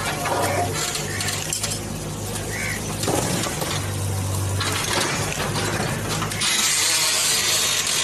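JCB backhoe loader's diesel engine running steadily while its bucket pushes over a brick boundary wall, with masonry crumbling and breaking. Near the end comes a loud rush of falling bricks and rubble as the wall section comes down.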